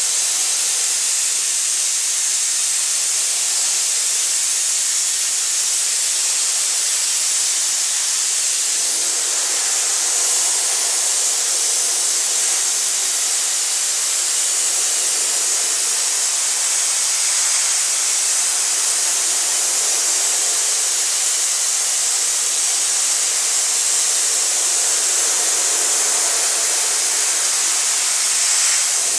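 Aerogommage gun blasting a wooden kitchen cabinet door with compressed air and fine abrasive: a steady, loud hiss, stripping the old finish off the wood.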